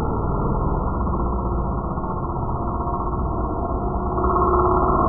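Small two-stroke petrol engines of 1:5 scale RC rally cars buzzing as the cars race. The note grows louder about four seconds in as a car comes near.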